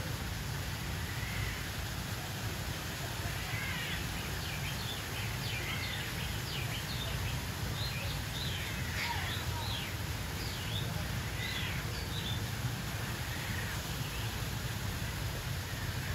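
Many birds calling at once: short, rapid chirps and squawks, busiest through the middle, over a steady low rumble.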